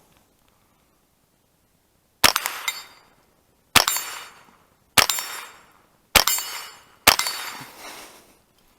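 Five rifle shots, spaced about a second to a second and a half apart, each one sharp and dying away over the following second.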